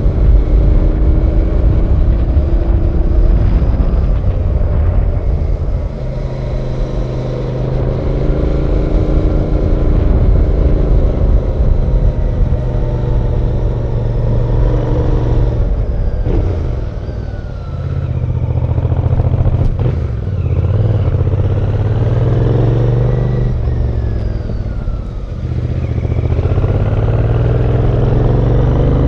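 Royal Enfield Bear 650's 648cc parallel-twin engine running under way, its revs rising and falling several times, with short dips in level about two-thirds of the way in and again later.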